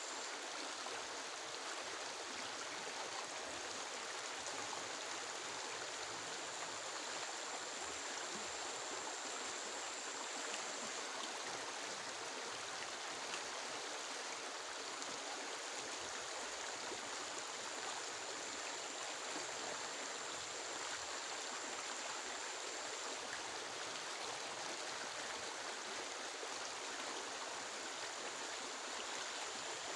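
Steady rushing water: an even hiss with no single drops or splashes standing out, and a thin high whine that fades in and out over it.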